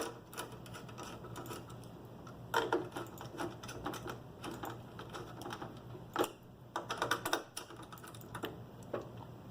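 Screwdriver driving the spring-loaded screws of a CPU heatsink into a motherboard: irregular small clicks and scrapes of metal on metal, with busier clusters about two and a half seconds in, around six seconds and around seven seconds.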